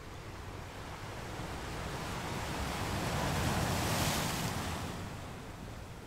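Sea waves washing over rocks along a rocky shore. One wave swells, breaks loudest about four seconds in with a bright hiss of foam, then drains back.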